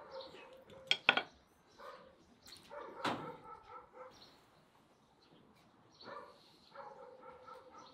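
A dog whining and yelping in short, high pitched calls, several times, with a few sharp clicks about a second in.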